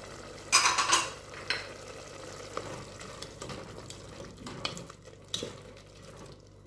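Meat, onion and tomato frying in an aluminium pot, stirred with a spoon: a loud sizzle about half a second in as the stirring starts, then a few separate scraping strokes of the spoon against the pot, getting quieter toward the end.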